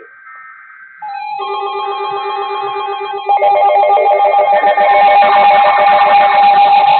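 Electronic alert tones piling up in layers: steady beeps and warbling data-burst tones. They get much louder about three seconds in, typical of Emergency Alert System header and attention tones played over one another.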